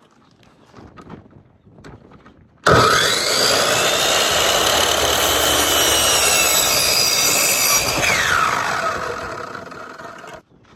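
Electric power saw starting up with a rising whine and cutting through a wooden board for about five seconds, then winding down with a falling whine after the cut.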